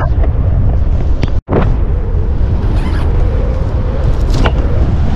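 Loud rush of airflow buffeting the microphone of a camera worn by a wingsuit pilot in flight, heaviest in the low end. It cuts out for an instant about a second and a half in.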